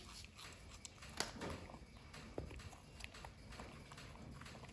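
Quiet, scattered crisp clicks and crunches of raw winter melon being bitten and chewed by a baby macaque, with one sharper click about a second in.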